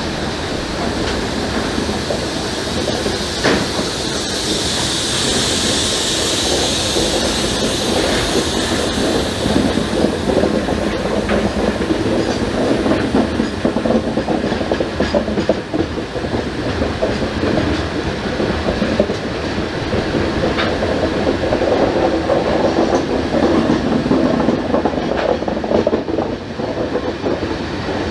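A long train of loaded spoil hopper wagons rolling steadily past. The wheels give a continuous rumble, with scattered clicks over the rail joints.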